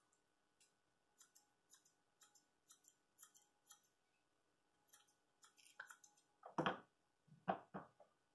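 Grooming scissors snipping the hair on a small dog's face: a run of faint, crisp snips, about two a second. A few louder, fuller short sounds follow near the end.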